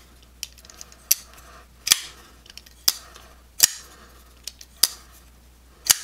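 Arcform Theory frame-lock folding knife flicked open and shut over and over: a sharp click about once a second as the blade snaps into place on its steel lock bar insert, with fainter ticks between. The openings alternate between thumb-stud deployment and reverse flick, which sound different.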